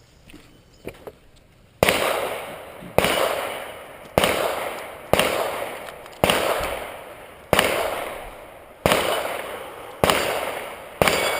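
Nine gunshots fired at a steady pace about a second apart, starting about two seconds in, each crack followed by a trailing echo.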